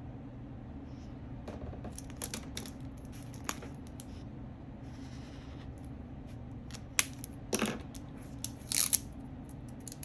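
Desk handling sounds from annotating a book by hand: scattered sharp clicks and taps of pens and short papery rustles, busiest and loudest about seven to nine seconds in, over a steady low hum.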